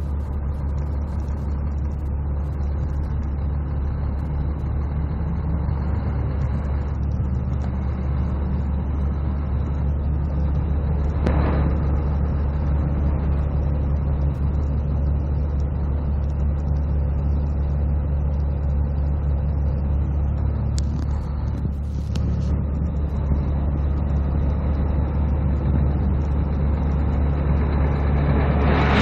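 Mack EM6-300L 11-litre inline-six diesel of a 1991 Mack RD690S dump truck idling steadily, with a short sharp sound about eleven seconds in and a rush of noise starting right at the end.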